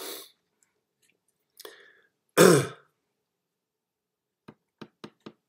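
A man clears his throat once, loudly, about halfway through, after a brief softer vocal sound. Near the end come four quick light clicks.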